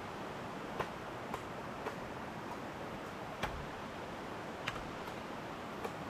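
Machete striking a bamboo pole: about six sharp, short knocks at uneven intervals, over a steady hiss.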